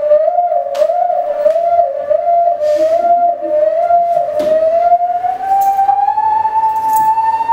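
Eerie dance music: one held, siren-like tone that wavers up and down, then slowly slides upward over the last few seconds, with a few sharp clicks.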